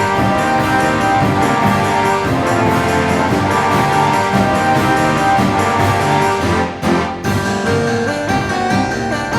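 Background music with a steady beat and many quick pitched notes; it briefly drops out about seven seconds in.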